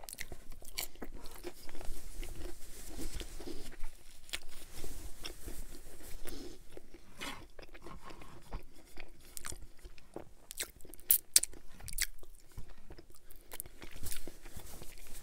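Close-miked chewing of cauliflower-crust pizza, with irregular sharp crunches as bites break through the crust.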